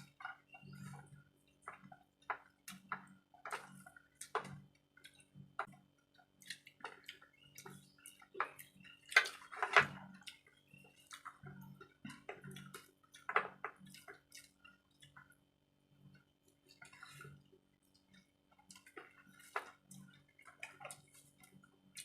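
Eating sounds: close-up chewing and wet mouth smacks, irregular clicks and slurps with a few louder ones about nine to ten seconds in and again around thirteen seconds.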